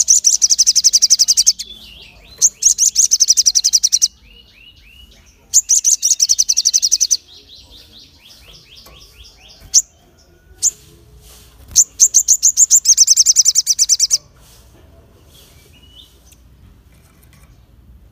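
Caged sogon songbird singing in sharp bursts: four fast trills of high chirps, each about a second and a half long, with a couple of single calls between them and quieter pauses.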